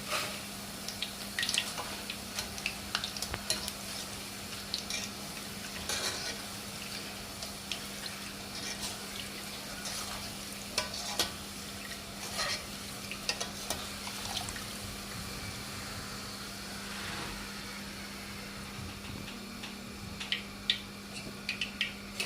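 Boondi drops frying in hot oil with a steady sizzle, while a metal ladle clinks and scrapes against the pan again and again as the batches are stirred and lifted out.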